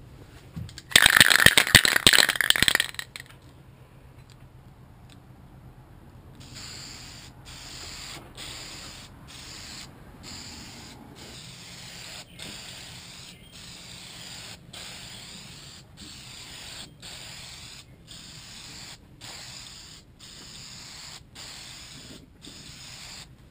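Aerosol spray paint can shaken hard, its mixing ball rattling loudly for about two seconds; a few seconds later a steady spray hiss starts, broken by short gaps about once a second as the nozzle is released between passes.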